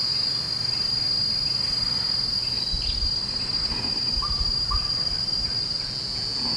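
Insects droning in the trees, one steady high-pitched note that never breaks. Two faint short notes sound just past the middle.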